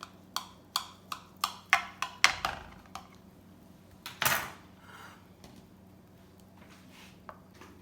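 A serving utensil knocking and clacking against a baking dish while a casserole is cut and lifted out: about nine sharp clicks in quick succession, then a longer scrape about four seconds in, and a few faint taps near the end.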